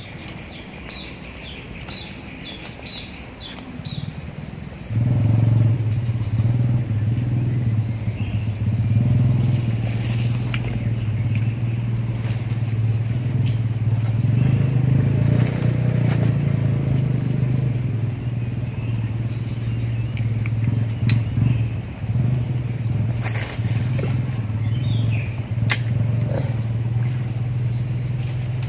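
A bird gives a quick run of high chirps. About five seconds in, a low, steady engine hum sets in and becomes the loudest sound.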